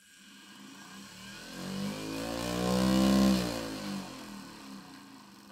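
Home-built 3D-printed brushless motor running, its hum rising in pitch as it speeds up to a peak about three seconds in, then falling as it slows down again. Its rotor is unbalanced, which sets the motor vibrating.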